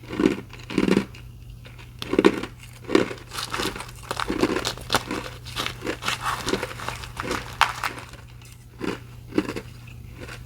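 Ice being bitten and chewed close to the microphone. First come a few separate loud crunches, then a dense run of crackly crunching through the middle, and two more crunches near the end.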